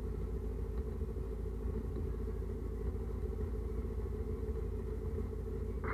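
Thojomech F12A CNC milling machine running, its spindle driving an end mill through an aluminium block: a steady low rumble with a constant hum.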